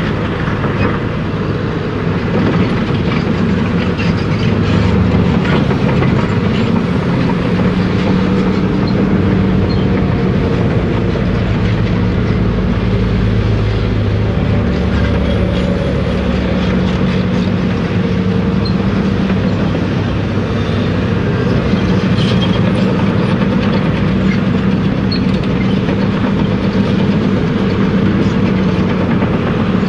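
A Caterpillar 345B L hydraulic excavator's diesel engine running under load, its pitch rising and falling as the machine digs and swings. Scattered clanks and rattles come from the steel bucket and the rock.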